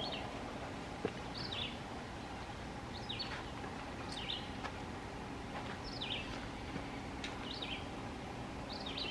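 A songbird calling over and over: a short, falling two-part chirp about every second and a half, with a single click about a second in.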